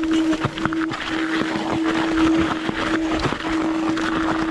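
Mountain bike riding down a rough trail: tyre and wind noise with many short rattling knocks from bumps, over a steady hum that breaks off briefly a few times.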